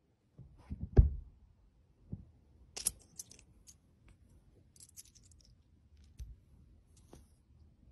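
Light handling sounds: a soft thump about a second in, then scattered small clicks, taps and faint scratches as a cat paws at coins on an upholstered armchair seat.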